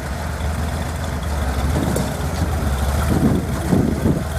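Off-road 4x4 vehicle's engine running low and steady while crawling over rock, with a few louder surges about three seconds in.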